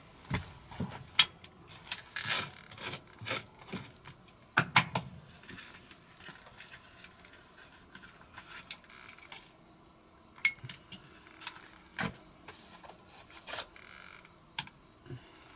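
Irregular scraping, rubbing and knocking of hand work, busiest in the first few seconds and then thinning to occasional clicks and taps.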